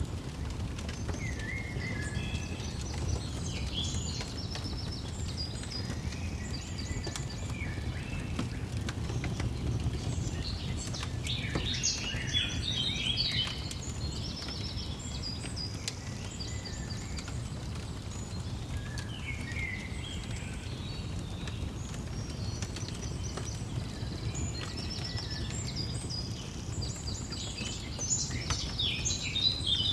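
Several songbirds chirping and trilling in quick repeated notes, busiest about twelve seconds in and again near the end, over a steady low rumble with faint scattered crackles of a fire.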